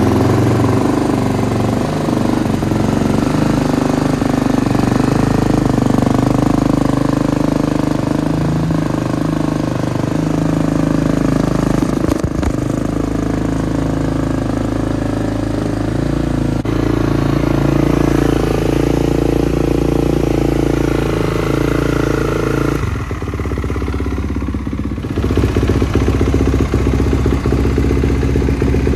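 2019 Kawasaki KX450's single-cylinder four-stroke engine running just after start-up. Its note dips and thins out briefly about 23 seconds in, then comes back up.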